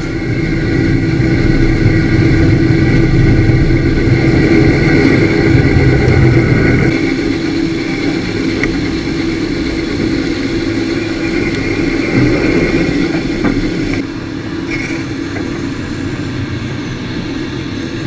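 Gleaner combine harvester running alongside with its unloading auger pouring grain into a grain cart: a steady mechanical hum and rush of grain, its low rumble easing about seven seconds in.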